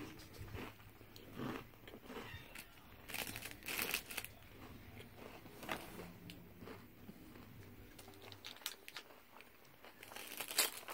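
Faint, scattered crunches and crinkles: a chocolate-covered peanut-butter wafer bar being chewed and its clear plastic wrapper handled.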